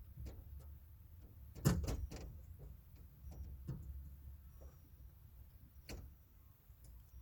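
Scattered clicks and metal knocks from a replacement power window regulator being fitted and screwed into a pickup truck's rear door. The loudest cluster of knocks comes about a second and a half in, with another sharp knock near the end.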